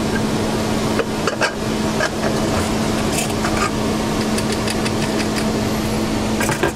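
Steady motor or fan hum with a constant low tone. A few light metallic clinks come from the aluminium pressure cooker's lid as it is worked free and lifted out of the pot.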